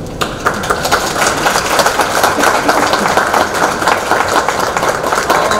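Audience applauding: many hands clapping together, breaking out suddenly just after the start and going on steadily.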